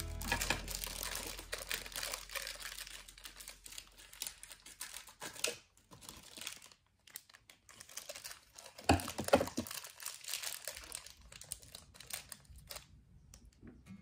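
Crinkly wrapping being handled and crumpled, crackling in two long stretches with a short pause about six seconds in. A few louder knocks come about nine seconds in.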